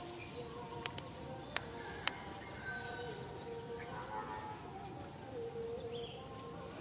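Outdoor ambience: scattered short bird chirps over a faint hum that wavers in pitch, with three sharp clicks in the first two seconds.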